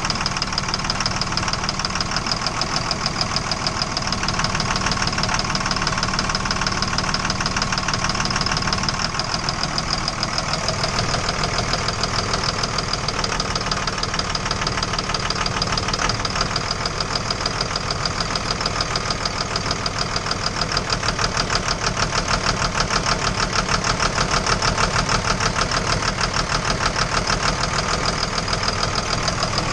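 Engine idling with a steady, rapid knock throughout, the knocking the engine is being recorded for.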